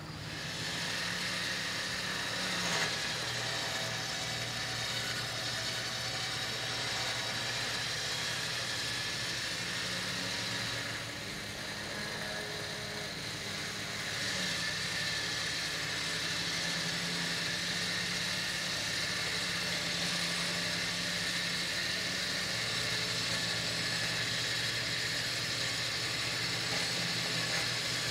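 Badlands 12,000 lb electric winch reeling in synthetic rope under load, a steady motor-and-gear whine over the Toyota FJ Cruiser's running engine. The whine eases for a few seconds near the middle and then picks up again at a slightly changed pitch.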